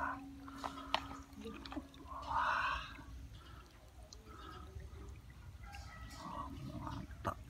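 Wet sloshing and dripping as live Asian swamp eels are lifted and handled by hand in a plastic basin of water, with a few sharp clicks and a louder splash about two and a half seconds in.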